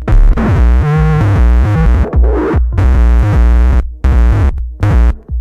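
Feedback noise from a Gemini CDM-3600 all-in-one DJ unit with its own output fed back into its mic input: distorted tones that bend and wobble in pitch over a heavy bass drone. The sound is cut off abruptly into short chopped sections, with brief drop-outs about two, four and five seconds in.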